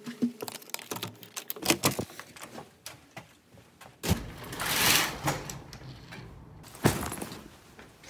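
A hotel room door's keycard lock and lever handle clicking and knocking as the door is opened. About four seconds in comes a swelling swish, and near the end a single sharp knock.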